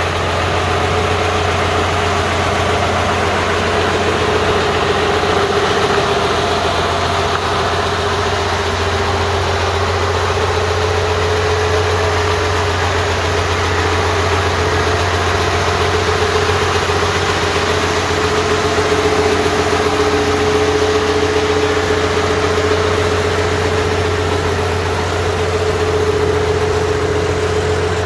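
Diesel engine of a Mitsubishi MS180LC-3 hydraulic excavator running steadily at a constant speed, with a low hum and a steady whine.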